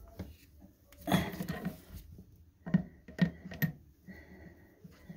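Wrench working the toilet's water supply line fitting: a rustle, then a few sharp metal clicks, and a louder knock near the end as the connection is tightened against leaks.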